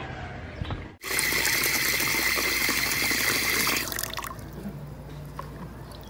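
Tap water running into a ceramic washbasin. It starts suddenly about a second in and stops about three seconds later.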